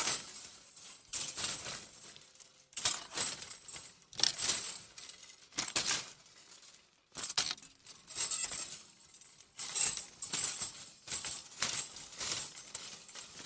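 Metal wire clothes hangers clinking and rattling against each other, handled in a series of short jangling bursts with brief pauses between them.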